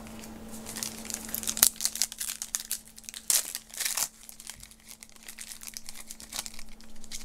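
A trading-card pack wrapper being torn open and crinkled by hand: a run of sharp crackles, loudest in the first four seconds, then softer rustling as the cards are handled. A faint steady hum runs underneath.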